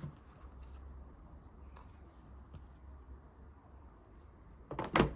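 Quiet room tone with a few faint clicks, then a short cluster of louder clicks and rustling near the end: handling noise.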